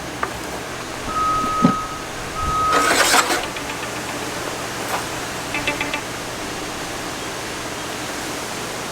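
Two short electronic beeps at one pitch, with a dull thud between them, then a brief loud rush of noise and a few light clicks, over a steady hiss.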